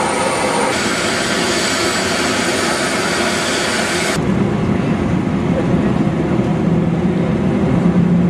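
Jet airliner noise on an airport apron: a steady broad rush with a thin high whine. About four seconds in it cuts abruptly to a duller, muffled rush with a steady low hum, as heard from inside an aircraft cabin.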